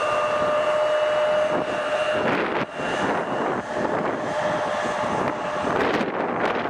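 Airplane engines running: a steady high whine, then a broad rushing noise that takes over about two seconds in.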